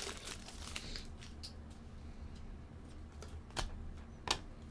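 Trading cards handled and flipped through by hand: quiet soft slides and small ticks of cardstock, with two sharper clicks near the end. A brief crinkle of the foil pack wrapper comes in the first second.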